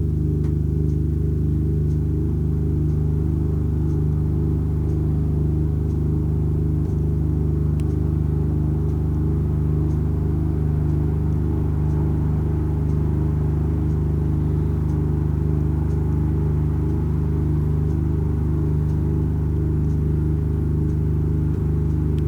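Computer-synthesized drone made by playing a nested-circle curve as a stereo waveform, each point of the curve decoded through mid/side equations into the left and right channels. It is a steady hum of several low tones with a fast, fluttering pattern just above them.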